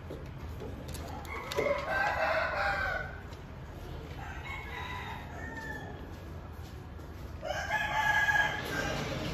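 Three drawn-out animal calls: a loud one about a second and a half in, a fainter one in the middle, and another loud one near the end. A steady low rumble runs underneath.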